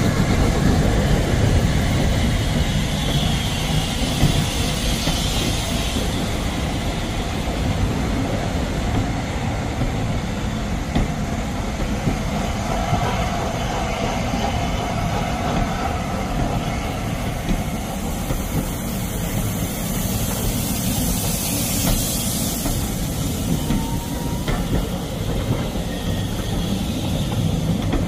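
Passenger coaches of a steam-hauled train rolling past close by, a steady noise of wheels running on the rails. About two-thirds of the way through, a hiss of steam rises over it briefly.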